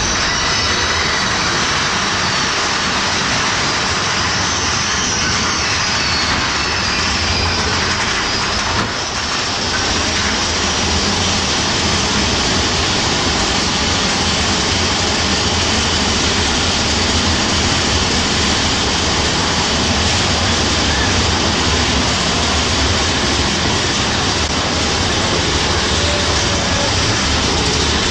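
Mine-train roller coaster running along its track, a steady loud rumbling noise of the train in motion, with a brief dip about nine seconds in.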